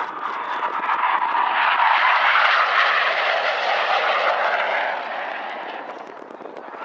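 Red Arrows BAE Hawk T1 jet flying past, its single Adour turbofan engine giving a broad jet noise. The noise swells to a peak about two or three seconds in and fades after about five seconds.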